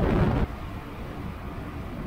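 Loud intro music cuts off about half a second in, giving way to the steady wind and road noise of a Yamaha XT660R motorcycle riding at speed, heard on the camera's microphone.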